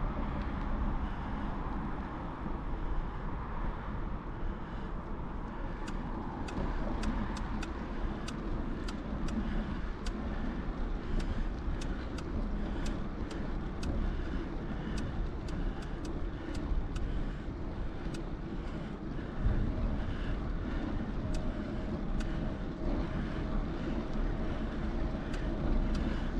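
Bicycle riding: steady rolling and wind rumble, with a run of light ticks about two a second through the middle.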